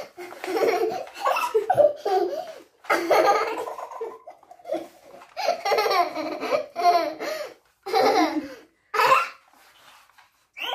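A young girl laughing in repeated bursts as a dog climbs over her and nuzzles her face, falling quiet near the end.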